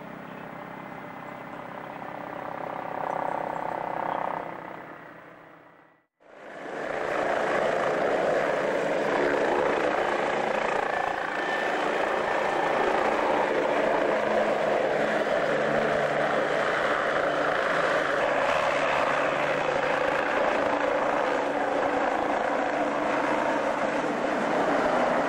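Helicopter rotor and engine noise at close range, loud and steady, carrying an underslung cargo net. It is fainter and building in the first few seconds, fades out about six seconds in at a cut, and comes back loud.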